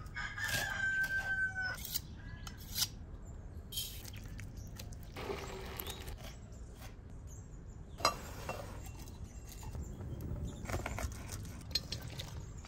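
A rooster crowing once at the start, followed by scattered bird chirps. Rice is poured from a pot into a bowl around six seconds in, and a sharp clink comes just after eight seconds.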